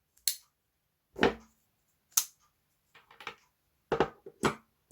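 A string of about six short, sharp clicks and knocks with gaps between them, from pocket knives being handled: blades and locks clicking and the knives knocking down on a surface.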